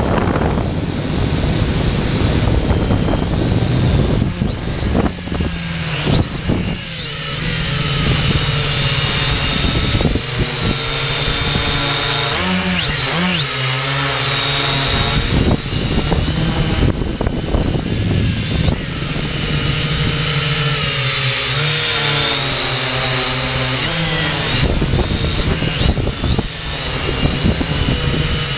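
Xtreem Fly Eye quadcopter's electric motors and propellers whining, picked up by its onboard camera with wind rushing over the microphone. The pitch of the whine rises and falls several times as the throttle changes.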